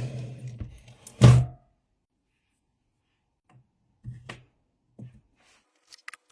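A single solid thunk about a second in, then near quiet with two faint knocks later on: the sound of parts being handled on a workbench.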